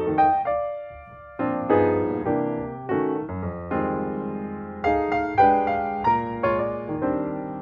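Background music played on a piano-like keyboard, a run of struck notes and chords, with one held note letting the sound thin out briefly about a second in.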